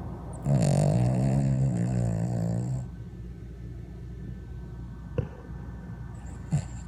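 A dog snoring: one long snore starting about half a second in and lasting a little over two seconds, followed by two short, sharp sounds later on.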